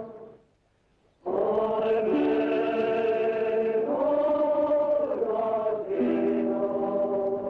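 Film score of slow, sustained chant-like chords from voices. It breaks off just after the start, comes back about a second in, and moves to a new held chord every second or two.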